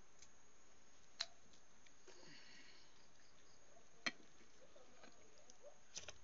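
Quiet handling sounds of a balut egg being peeled: faint shell rustling and a few sharp clicks, one of them, about four seconds in, a spoon knocking against an enamel bowl.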